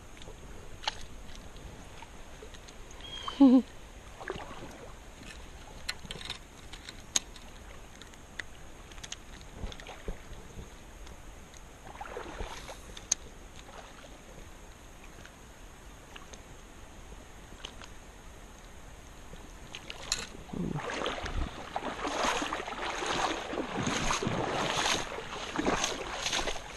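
Water sloshing and splashing in irregular strokes, getting louder from about twenty seconds in, as of someone wading through a shallow creek. About three seconds in, a single short pitched squeak stands out as the loudest sound, with scattered light clicks and knocks around it.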